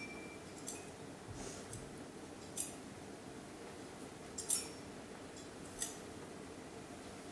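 Metal thurible clinking on its chains as it is swung to incense the Gospel book: several sharp metallic chinks, a second or two apart, the loudest about two and a half, four and a half and six seconds in, in a reverberant church.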